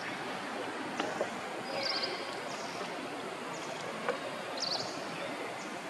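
Outdoor ambience: a steady hiss of background noise with two short high chirps, about two and about five seconds in, and a couple of faint clicks.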